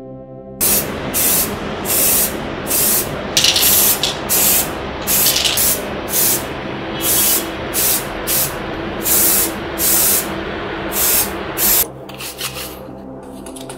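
Compressed-air spray gun let off in short hissing bursts, about one or two a second, over a steady rushing noise. It starts just after the beginning and stops suddenly about twelve seconds in.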